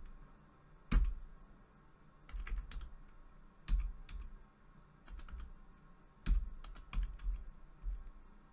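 Typing on a computer keyboard in short bursts of a few keystrokes, with pauses between, as numbers are keyed in one at a time.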